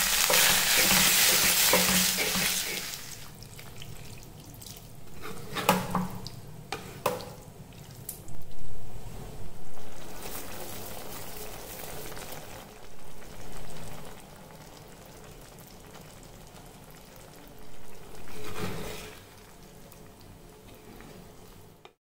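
Potato, cauliflower and capsicum frying in a pot with a loud sizzle as the masala is added, then a spatula stirring and scraping with scattered knocks against the pot.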